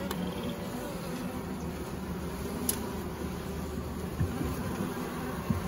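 Steady hum of a honeybee colony in an open long hive, with a few light clicks and knocks as the wooden boards are handled.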